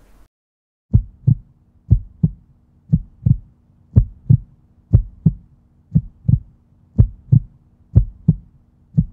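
End-card sound track: a heartbeat-like double thump, repeating about once a second over a faint steady low drone. It starts about a second in.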